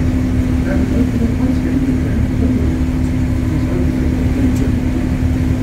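River cruise boat's engine running steadily: a constant low rumble with a steady hum over it.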